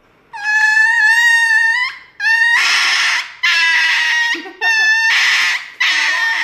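Small dog screaming as it is given an injection: a run of about five loud, high-pitched cries of roughly a second each, one after another with brief breaks.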